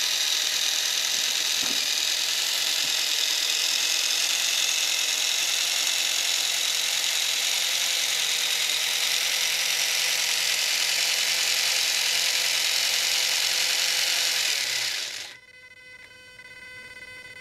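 Small electric drive motor of an RC car conversion spinning a 3D-printed plastic gearbox and rear axle: a steady high-pitched whir that winds down and stops about fifteen seconds in, leaving a faint hum.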